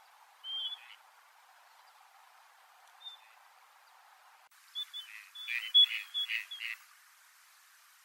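Gadwall giving display calls. A short whistled note comes about half a second in and a faint one near three seconds, then a quicker, louder run of whistles mixed with rougher nasal notes over about two seconds near the end.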